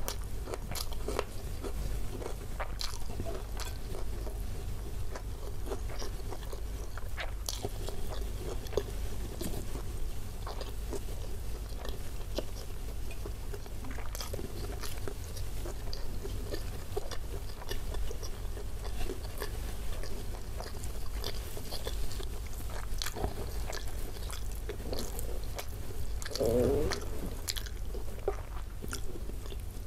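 Close-miked chewing of rendang with rice, with many small wet mouth clicks and smacks, and a brief low vocal sound near the end.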